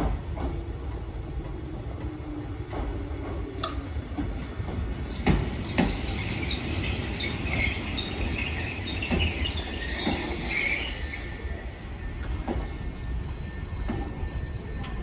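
Train running past on the rails with a steady low rumble and a few knocks of wheels over rail joints; wheels squeal high-pitched for several seconds through the middle.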